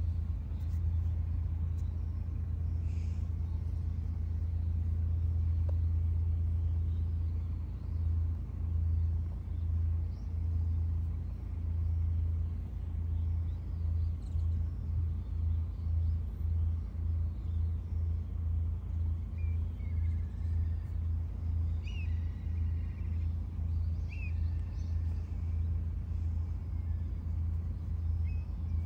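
Domestic cat purring close to the microphone, a low steady rumble that turns into an even pulsing rhythm, a little under two beats a second, about a quarter of the way in.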